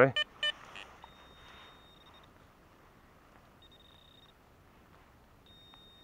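Garrett ACE Apex metal detector sounding a target signal: two short beeps about half a second in, then a faint, thin, high steady tone three times.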